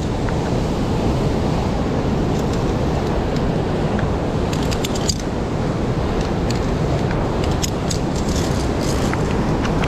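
Steady rushing noise of the gorge's stream mixed with wind on the microphone, with scattered light metallic clinks that grow more frequent about halfway through.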